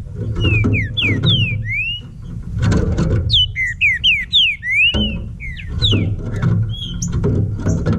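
Green-winged saltator (trinca-ferro) singing a string of quick whistled notes that slide up and down. Background music with a steady low beat runs under it and drops out briefly about two-thirds of the way through.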